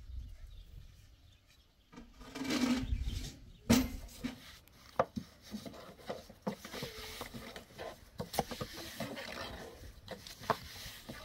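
Thin wooden rolling pin rolling out flatbread dough on a round wooden board: uneven rubbing of wood, with a sharp knock every second or two as the pin strikes the board. There is a brief, louder sound with a low steady tone about two seconds in.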